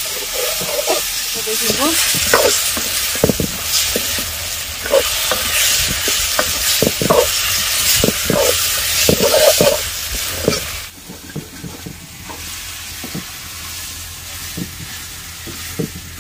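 Potato slices frying in tomato masala in an iron kadai, sizzling, while a metal ladle scrapes and knocks against the pan as they are stirred. The sizzle drops to a softer level about eleven seconds in, with the occasional scrape going on.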